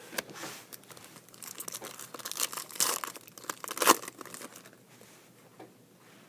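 Foil wrapper of a Bowman Chrome football card pack crinkling and tearing as it is ripped open by hand. A run of sharp crackles, loudest about four seconds in, then quieter rustling.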